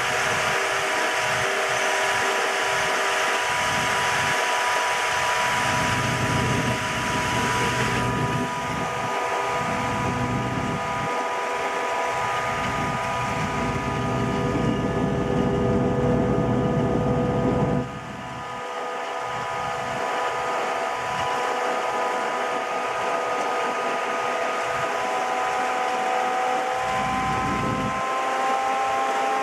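Grand-scale F-unit locomotive running steadily, heard from its cab: its engine gives a steady whine over a low rumble of the wheels on the track. The sound changes about eight seconds in as the train leaves a tunnel, dips briefly at about eighteen seconds, and the whine rises a little near the end.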